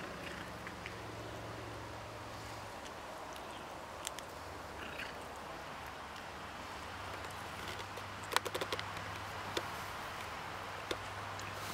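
Cat chewing and crunching a small mouse: scattered small clicks and cracks, with a cluster of sharper ones about eight seconds in, over a steady low hum.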